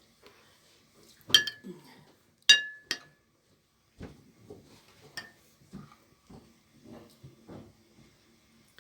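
Spoons clinking against soup bowls at a meal: three sharp clinks with a short ring between one and three seconds in, then softer, duller knocks and scrapes.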